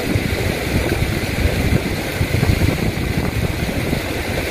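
Wind buffeting the microphone: a low, uneven rumble that rises and falls, over a steady hiss.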